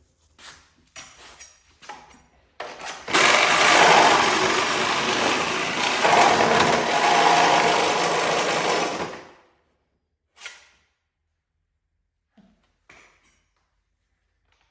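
Reciprocating saw cutting through a steel chassis frame rail, running steadily for about six seconds from about three seconds in, then stopping. A few light knocks come before it and a few faint ones after.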